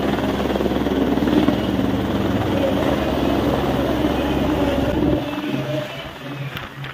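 Helicopter flying low overhead, its steady rotor and engine noise loud at first, then falling away sharply about five seconds in as it moves off.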